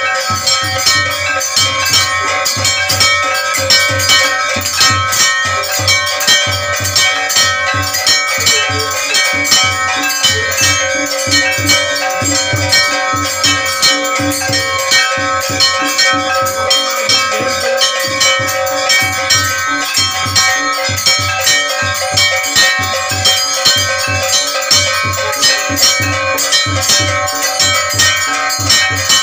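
Aarti music of continuously ringing bells and metal gongs over a steady drum beat.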